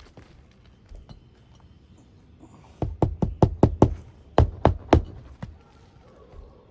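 Roofing nails being hammered through a replacement asphalt shingle: a quick run of about nine sharp blows in two bursts, starting about three seconds in.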